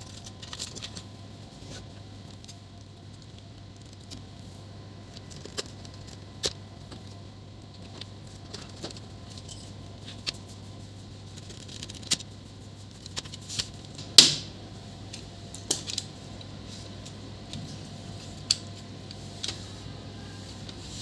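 Scattered small clicks and metallic taps from laptop parts and screws being handled and fitted by hand during a hinge repair, over a low steady hum. The loudest click comes about fourteen seconds in.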